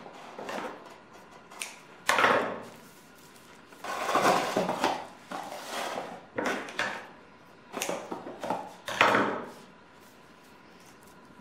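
Irregular rustling and scraping bursts of hands trussing a raw chicken with kitchen string on a plate, the loudest about two seconds in, around four to five seconds in and about nine seconds in.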